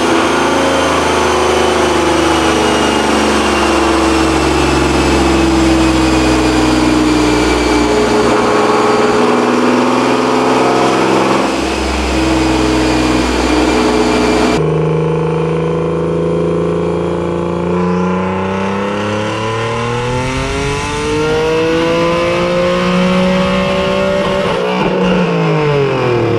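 Single-turbo Nissan 370Z NISMO's 3.7-litre V6 running on a chassis dyno, first at fairly steady revs. Then, in a separate run, it makes a pull with the engine note climbing steadily for several seconds and dropping sharply as it is let off near the end.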